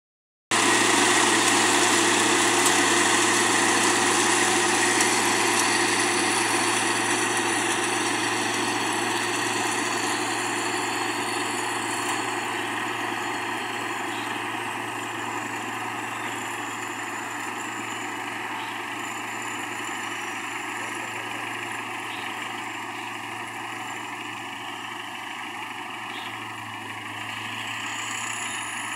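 Tracked rice combine harvester's engine and cutting and threshing machinery running steadily with a constant low hum, growing gradually fainter as the machine moves away.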